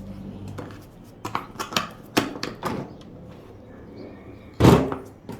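Tools and supplies being handled in a toolbox: a run of sharp clicks and knocks, then one loud knock near the end, like a drawer or lid being shut.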